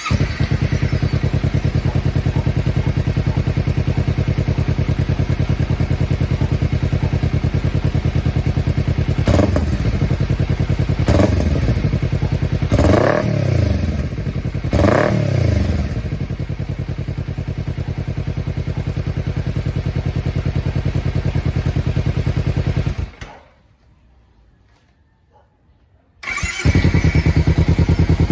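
Kawasaki Ninja 300 parallel-twin engine through an Akrapovic exhaust: it starts and idles, is revved in several quick blips between about ten and fifteen seconds in, then settles back to idle. Near the end it shuts off for a few seconds, then starts again and idles.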